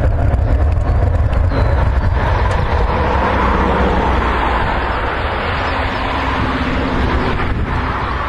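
Panavia Tornado's twin Turbo-Union RB199 turbofans running loudly: a deep rumble under a broad jet hiss that swells about two seconds in.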